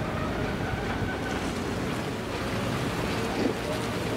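Steady outdoor rumble of wind buffeting the microphone at a harbour's edge. A faint steady hum comes in about three seconds in.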